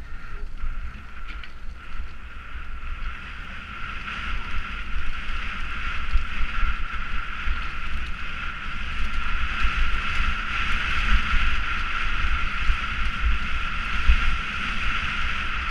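Wind buffeting the microphone and a mountain bike rattling over a dirt and gravel trail at speed on a downhill run, with a steady high whine that grows louder after about four seconds.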